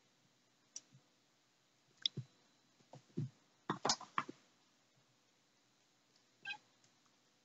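Light scattered thumps and clicks of cats scuffling and pouncing on a wooden floor, busiest about four seconds in, with a short high squeak about two-thirds of the way through.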